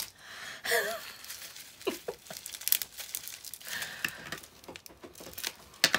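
Plastic bubble-wrap pouch crinkling and crackling in the hands as it is pulled open, with sticky cellophane tape being picked and torn off it in irregular snaps and rustles.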